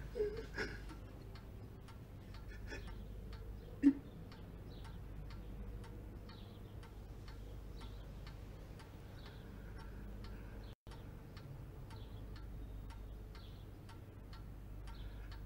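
Steady ticking, a few ticks a second, over a low steady hum, with one loud short thump about four seconds in.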